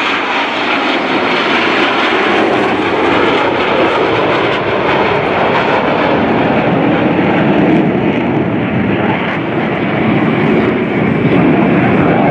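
F/A-18 Hornet fighter jets flying past with loud, steady jet engine noise. The sound grows deeper in the second half.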